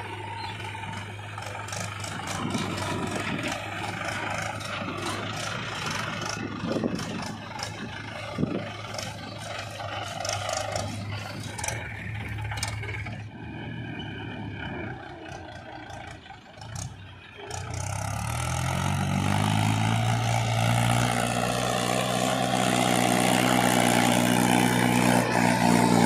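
Diesel machinery running steadily, with scattered clicks and scrapes. About two-thirds of the way through, a Mahindra 475 DI tractor's diesel engine takes over, rising in pitch and growing louder as it hauls a loaded trolley of soil.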